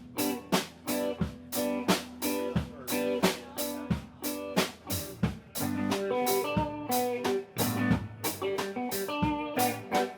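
Instrumental band music: guitar over a drum kit keeping a steady beat, with no singing.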